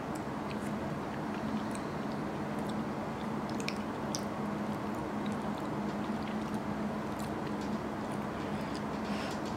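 Chewing and soft mouth sounds of someone eating curry and rice, with a few light clicks of a metal spoon against a ceramic bowl, over a steady low background hum.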